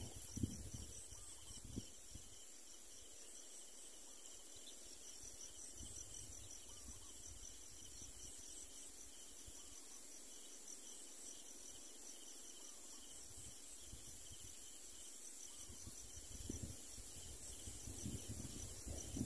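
Faint, steady chorus of insects, a high shrill hiss that pulses quickly and evenly, with no other sound standing out.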